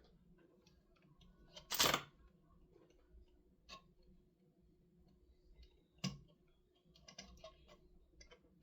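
Small clicks and taps from handling small plastic parts and tools, with a short loud rustling burst about two seconds in and a sharp knock about six seconds in.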